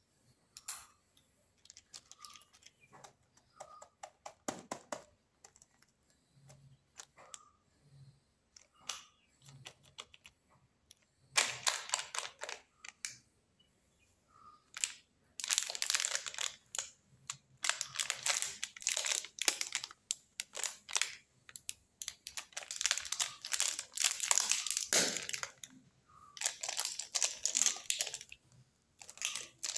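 Plastic candy and snack wrappers crinkling as they are handled, in repeated bursts. Scattered light clicks at first, then longer, louder stretches of crinkling from about a third of the way in.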